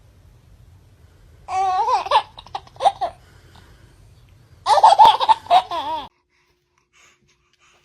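Baby laughing: two bursts of high-pitched giggling, the first about a second and a half in and the second about five seconds in.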